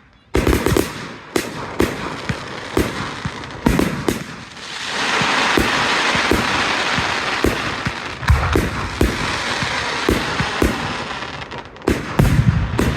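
Fireworks display: a quick run of sharp bangs from bursting shells. From about five seconds in, a dense, steady crackle fills in under the bangs, with a cluster of heavier booms near the end.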